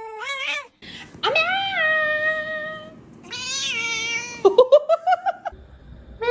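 Domestic cat meowing: two long drawn-out meows, then a quick run of short rising meows, as if copying a person's rapid 'nya-nya-nya'.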